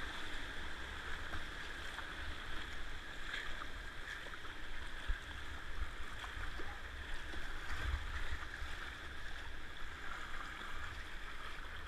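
Fast river water rushing and churning around a whitewater kayak, with faint ticks of paddle strokes and a low rumble underneath.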